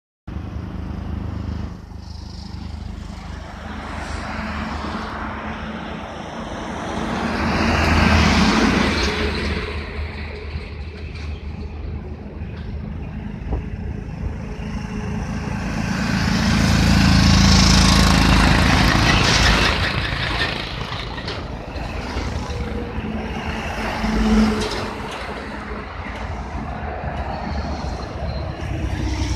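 Road traffic passing on a wide road: a steady low rumble with vehicles swelling by and fading away. The loudest passes come about eight seconds in and around seventeen seconds, with a smaller one near twenty-four seconds.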